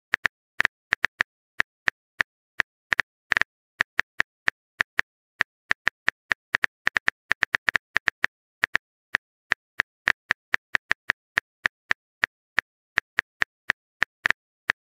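Phone keyboard typing sounds: a short, identical tap for each keystroke, coming unevenly at about four or five a second as a text message is typed out.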